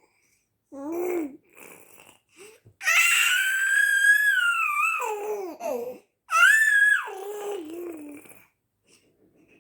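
Six-month-old baby making high-pitched squealing vocal sounds: a short cry-like call, then two long squeals whose pitch slides downward at the end, with short pauses between.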